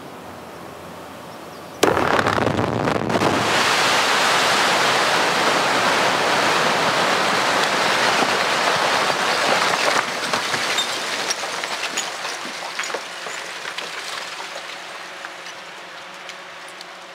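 Quarry rock blast going off about two seconds in: a sudden bang, then a loud steady rush of noise from the blast and flying rock that fades over the last several seconds, with scattered small clicks near the end.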